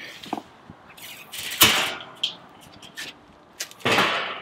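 Steel middle section of a Weber Smokey Mountain 22-inch smoker being lifted and lowered onto its charcoal bowl: metal scraping and rattling in two short rushes, the louder about a second and a half in and another near the end, with a few light knocks between.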